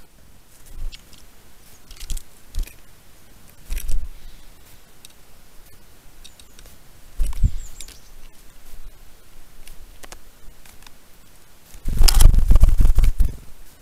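Scattered knocks and scrapes against the trail camera right at its microphone, then a louder scraping spell of about a second and a half near the end.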